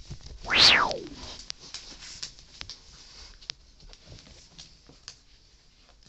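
A loud, brief swish right at the microphone about half a second in, then faint scattered ticks and patter as a miniature schnauzer's paws and its rope toy move on the carpet during tug-of-war play.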